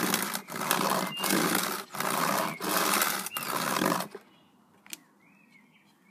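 Cardboard box scraping along a concrete pavement in repeated pushes, about one and a half strokes a second. It stops about four seconds in, and a faint tap follows.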